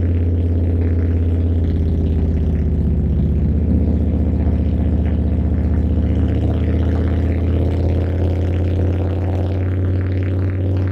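Harley-Davidson Milwaukee-Eight V-twin running steadily under way, heard on board the motorcycle, its pitch easing up a little a few seconds in.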